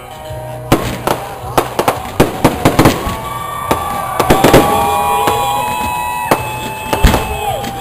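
Aerial fireworks bursting: a quick, irregular series of sharp bangs and crackles that thickens toward the middle, with steady high tones held for a few seconds partway through.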